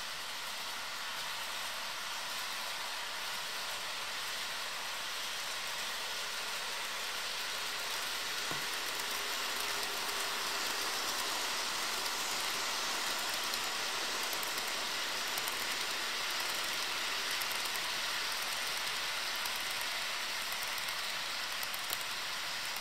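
HO scale model freight train rolling past, a long string of covered hopper cars: a steady rushing noise of the wheels running on the rails, growing a little louder as the cars pass close.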